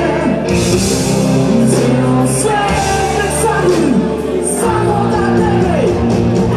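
Live rock band: a male lead singer singing over electric guitar through a Marshall amplifier and keyboards, with repeated crashes in the high end.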